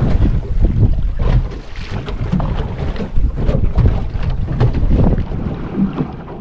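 Wind buffeting the microphone in uneven gusts, with choppy sea water splashing against the hull of a small boat.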